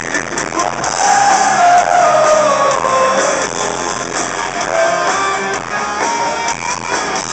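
Live rock band playing loud: electric guitars, bass guitar and drums, with a melodic line sliding down in pitch between about one and three and a half seconds in.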